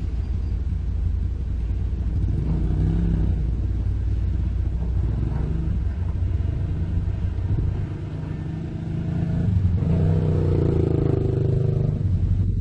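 Heavy diesel engines running: a Komatsu PC200 hydraulic excavator working as it loads dump trucks, mixed with a dump truck's engine. A steady low rumble that rises and falls, growing louder for a couple of seconds near the end.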